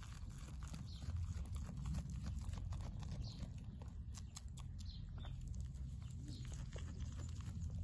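A goat kid grazing, tearing and chewing fresh grass in many quick crisp snaps, over a low steady rumble.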